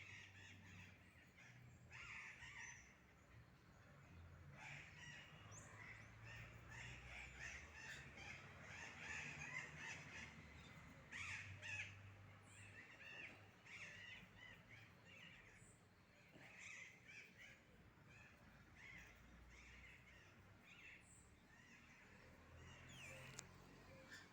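A flock of birds calling at once: many short, harsh, overlapping calls, faint and continuing throughout.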